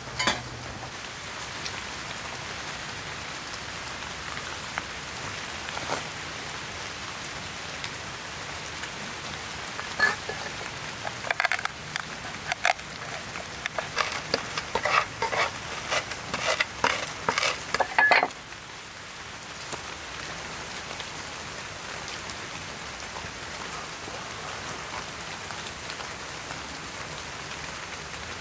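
Steady rain patter throughout. From about ten seconds in until about eighteen seconds, a run of sharp crunches and cracks as black peppercorns are crushed under the flat of a broad knife blade on a wooden board.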